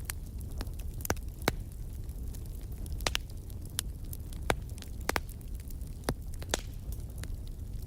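Wood fire burning in a fireplace: a steady low rumble from the flames, with several sharp crackles and pops of the burning logs scattered irregularly through it.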